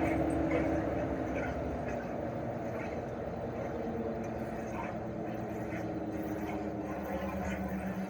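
Chofu AE-2844PX mini-split outdoor unit running in cooling mode: its single-rotary compressor and fan give a low steady hum with tones that fade, then a deeper tone builds near the end as the compressor speed changes. Faint short chirps sound in the background.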